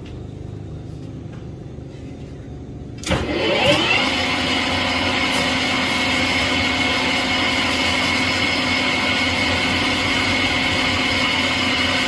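Metal lathe switched on about three seconds in, its three-jaw chuck coming up to speed and then running steadily with a constant hum and a higher whine.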